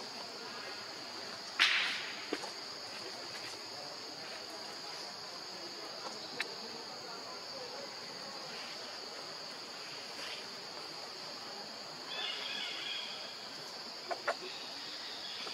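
Steady high-pitched drone of forest insects, with a loud, short noisy burst about one and a half seconds in, a few sharp clicks, and a brief high chattering call near the end.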